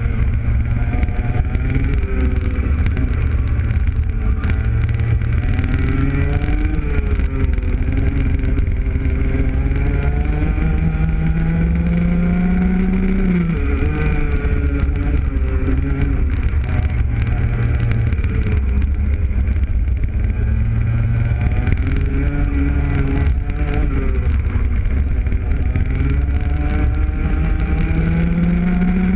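Rotax Max Junior kart's 125cc single-cylinder two-stroke engine heard onboard at racing speed, its pitch repeatedly climbing and falling as the driver works the throttle. A long climb about halfway through cuts off sharply, and another climb comes near the end.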